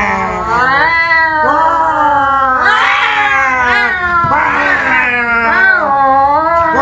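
Human voices imitating cats: long, overlapping caterwauling yowls with the pitch sliding up and down.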